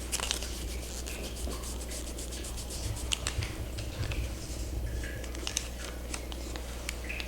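Kinesiology tape being applied to the skin: rubbing over the tape with irregular crackling clicks.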